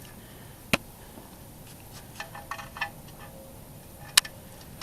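Small metallic clinks and taps as the oil drain plug is handled and fitted by hand: a sharp click about a second in, a few lighter ringing clinks in the middle, and another sharp click near the end.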